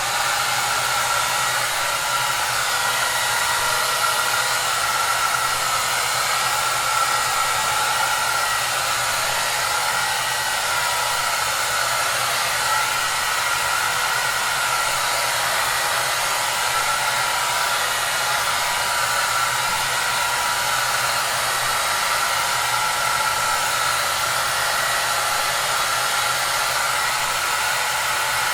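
Hair dryer running steadily: a constant rushing hiss of air with a faint steady whine.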